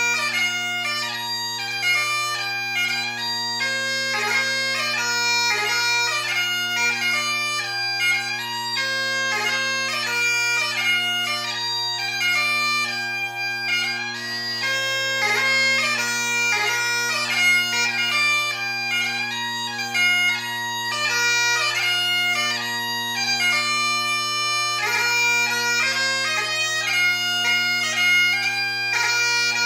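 Great Highland bagpipe playing a competition strathspey-and-reel set: the steady drones sound under a busy chanter melody of short notes.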